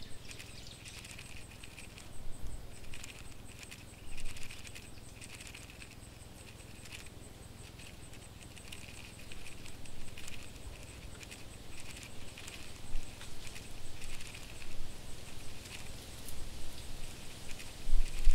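Irregular light pattering and scratching with short clicks, a sound effect of cockroaches scuttling across a surface.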